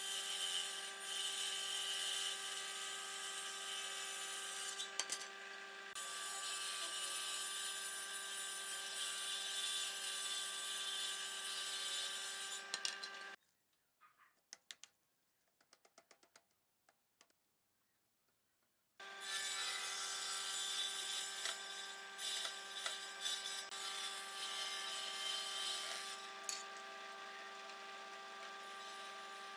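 An electric power tool running at a steady speed as it works wood, with a steady motor whine under a rasping noise. It cuts out for about five seconds near the middle, then starts again abruptly.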